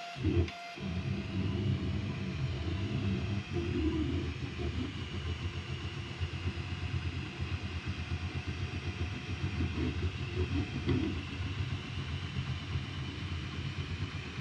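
FLSUN Q5 delta 3D printer printing in PLA: its stepper motors whine, the pitch wavering up and down as the print head moves, over a steady hum from the running printer and its fans.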